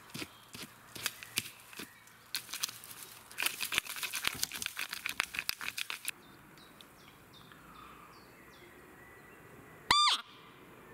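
Crackling and rustling on the forest floor for about six seconds, then a quieter wood with faint bird chirps. Near the end comes one short, high squeak from a roe deer call (Blatter), imitating a doe's fiep to lure a buck during the rut.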